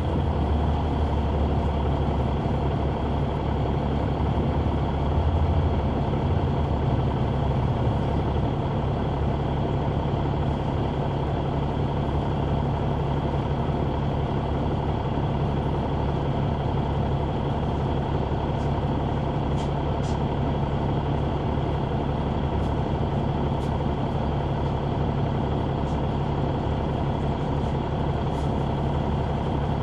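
Caterpillar C9 ACERT diesel engine of a 2004 Neoplan AN459 articulated transit bus running steadily, heard from a rear seat inside the bus. Its low hum is a little heavier for the first several seconds, then settles.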